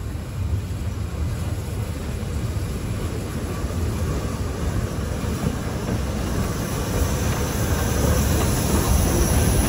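Small steam tank locomotive hauling a train of coaches, approaching and passing close by. Its low rumble grows steadily louder.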